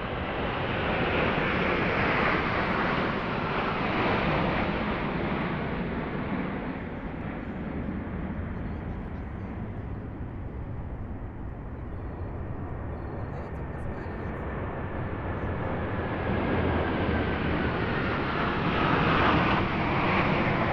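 Formations of military jet fighters flying past: the roar of one group fades over the first several seconds, then a second formation of Su-30SM and MiG-29 fighters builds up loud again, with a high whine sliding down in pitch as it passes.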